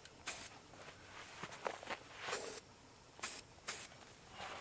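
Aerosol spray-paint can hissing in about four short bursts as paint is sprayed.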